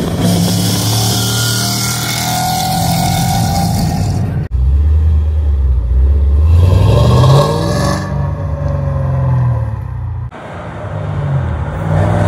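2006 Ford Mustang's engine and exhaust in three short clips: first running steadily at cruise, then revving with the pitch rising and falling back about halfway through, then running on again near the end.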